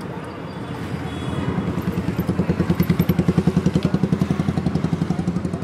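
A motorcycle engine running close by with a rapid, even putter. It grows louder from about a second in, is loudest in the middle, and eases off toward the end, as a bike passing slowly would.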